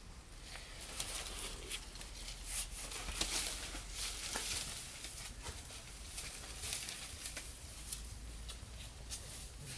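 Footsteps crunching on a dry, stony dirt path strewn with dead leaves, coming as irregular crackles and scuffs.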